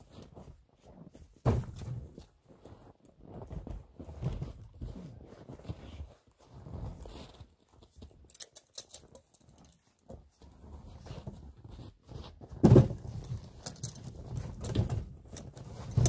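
Split birch firewood logs being handled and stacked onto a sled load: irregular wooden knocks and scuffs as logs are set down against one another, the loudest about thirteen seconds in.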